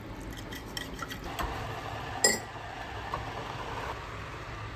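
A utensil stirring in a pot of heated vinegar brine to dissolve the salt and sugar: light scrapes and ticks, with one sharp ringing clink a little over two seconds in.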